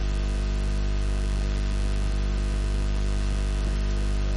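Steady electrical mains hum with hiss from the sound system, an even low drone with no change.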